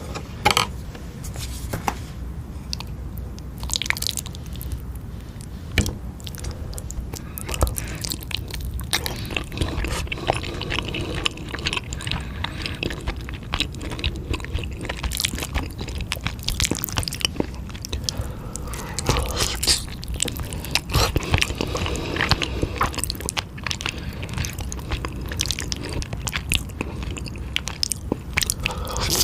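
Close-miked eating sounds: a person biting and chewing eel and spicy noodles, giving a dense, irregular run of wet smacks and crunches.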